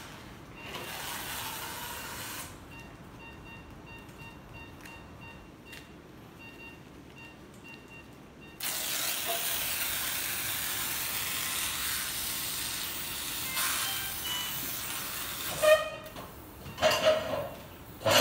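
Liposuction suction drawing fat and air through the cannula and tubing: a steady hiss, briefly near the start and then loud for about seven seconds from just under halfway in, with a few louder sounds near the end.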